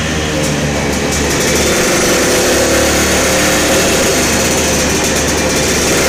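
Kawasaki AR93, a single-cylinder two-stroke moped engine with a 93 cc big-bore kit, running on a roller dyno, warming up at about 4,000 rpm.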